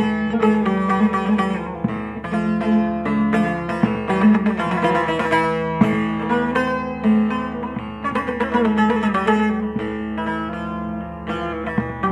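Instrumental passage of a song, with no singing: a plucked string instrument plays a melody over sustained low notes.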